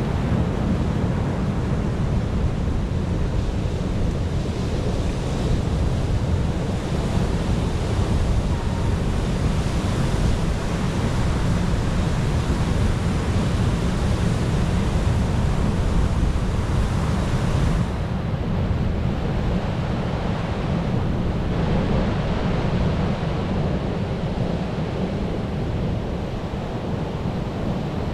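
Sea waves surging on a shore: a continuous rush of surf with a deep rumble underneath. About two-thirds of the way in, the higher hiss drops away suddenly.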